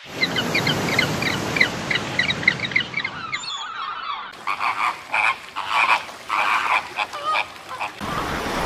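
Frogs calling in a rapid series of short repeated croaks over a steady hiss. About halfway through this gives way to a flock of water birds giving short separate calls.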